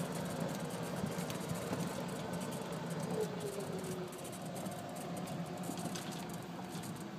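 Golf cart running over a grass fairway: a steady low hum with light rattling and small clicks, slowly getting quieter.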